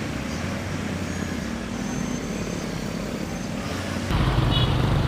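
Engine and road-traffic noise from vehicles crawling in a traffic jam. About four seconds in, a louder, steadier engine hum comes in close by.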